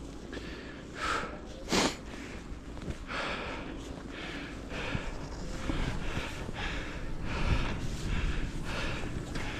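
A skier breathing hard in quick, rhythmic breaths, about two a second, over the hiss of skis through deep fresh powder; two short loud bursts come about a second and two seconds in.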